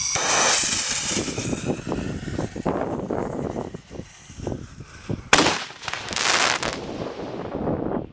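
A consumer multi-tube firework going off: a loud hissing launch, then a quick string of sharp cracks and pops, and two louder bursts about five and six seconds in.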